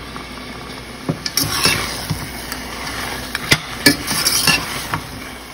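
Slotted spatula stirring mutton pieces through thick masala in a pressure cooker pot, with scattered clacks and scrapes against the pot's side and a light sizzle underneath.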